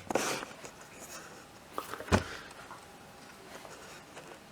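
Handling noises from the Amiga 1000's dusty power supply being moved on the bench: a short scraping rustle at the start, a single thump about two seconds in, then a few faint clicks.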